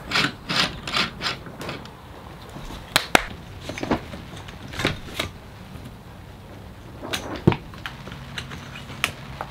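Light clicks and knocks of parts being handled and fitted together during assembly: a quick run of clicks at first, then single knocks every second or so.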